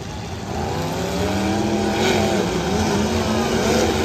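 Several demolition derby car engines running and revving together, their pitch rising and falling as the cars push and ram in the arena.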